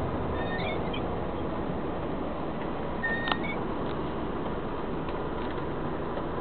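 Steady driving noise inside a truck cab while the truck is on the move. A few short high squeaks come in the first second, and a brief high whistle with a sharp click comes about three seconds in.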